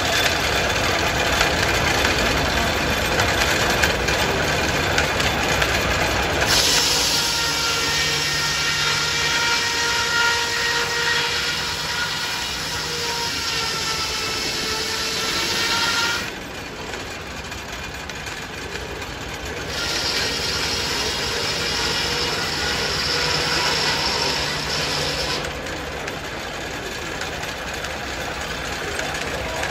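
Belt-driven circular sawmill powered by a steam traction engine, running steadily with its large blade cutting through a log twice. Each cut brings in a high ringing whine over the running noise: the first starts several seconds in and lasts about ten seconds, and a shorter second cut comes about two-thirds of the way through.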